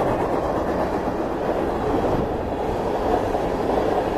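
Freight cars rolling past at track speed: a steady noise of steel wheels running on the rails.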